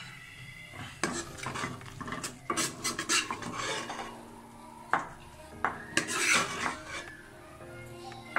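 Metal serving spoon scraping and clinking against a non-stick wok and a ceramic bowl as cooked keema is dished out: a string of irregular clicks, with a longer scrape about six seconds in.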